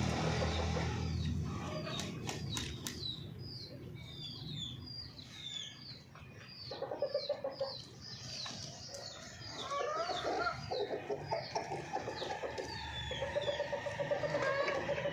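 Golden Misri hen clucking in short repeated calls from about halfway in, among a long run of quick, high, falling peeps.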